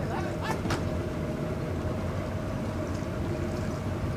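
Motorboat engine running steadily, a low rumble with a steady hum over it, and two sharp knocks about half a second in.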